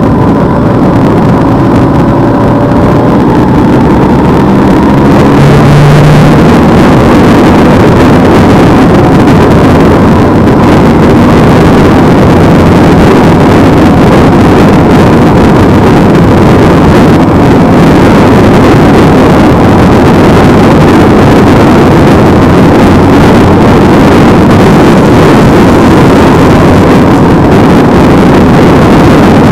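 Steady, very loud rush of wind and engine noise from a motorcycle riding at road speed, picked up by a camera on the bike or rider. It gets a little louder about five seconds in.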